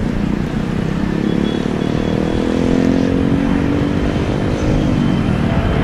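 Turbofan engines of a wide-body twin-jet airliner on final approach, making a steady drone with a low rumble. A cluster of engine tones slides down in pitch about five seconds in as the jet nears.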